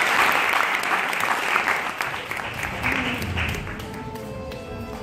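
Audience applause, a dense patter of many hands clapping, that fades out after about three seconds as music begins.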